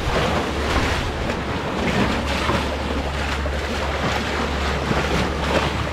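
Rough seawater surging and splashing in the gaps between concrete tetrapod breakwater blocks, with wind buffeting the microphone as a steady low rumble.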